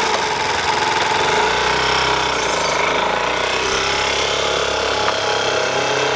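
Small motor scooter's engine running steadily with a fast pulsing beat as it carries two riders away.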